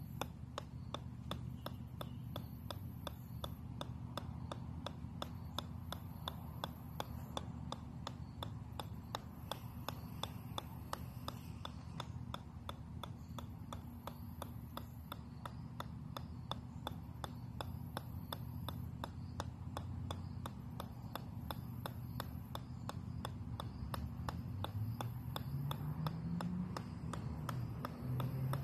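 Golf ball bouncing off the steel head of a 4-pound sledgehammer, a sharp click about three times a second in an unbroken run.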